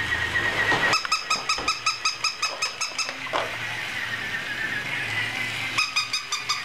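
Battery-operated plush toy puppy making its electronic sounds: a steady wavering whine over a low hum, broken by two runs of rapid squeaky electronic yips, about eight a second, one about a second in and one near the end.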